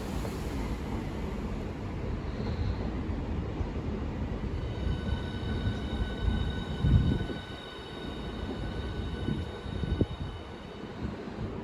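A train running through the station with a continuous rumble of wheels on track. A steady high whine comes in about halfway through. There are a couple of louder thumps, the first about seven seconds in.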